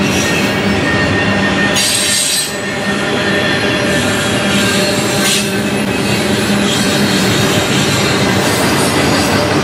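Double-stack intermodal container cars rolling past close by: a loud, steady noise of steel wheels on rail, with a few brief high-pitched wheel squeals, the strongest about two and five seconds in.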